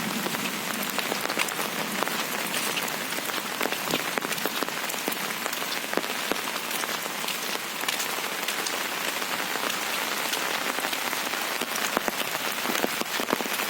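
Steady rain: an even hiss of falling rain with many sharp little drop ticks scattered through it.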